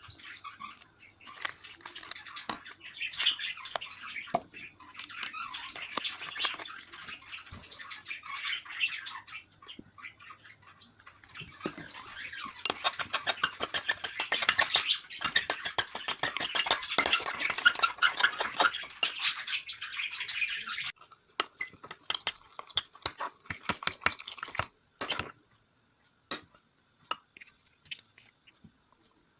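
A wet, sticky slime mixture being stirred in a bowl, with rapid clicking and scraping of the utensil against the bowl. Loudest and busiest in the middle; near the end it thins to scattered clicks, then stops.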